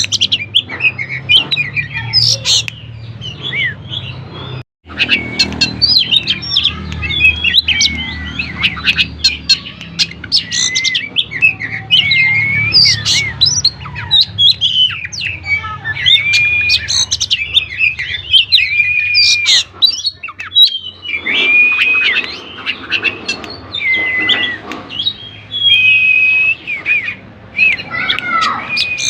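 Oriental magpie-robin (kacer) in full song: a continuous, fast-changing run of loud whistles, trills and harsh notes, breaking off for an instant about five seconds in. A low steady hum runs underneath.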